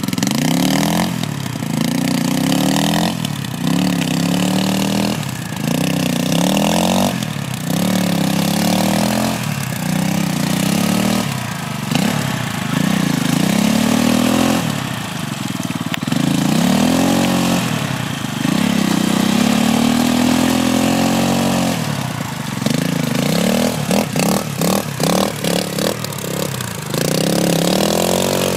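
Triton 450 SM quad engine revving up and falling back over and over, about every one to two seconds, as its rear wheels spin in deep sand with the quad stuck. Near the end comes a run of short, choppy throttle blips.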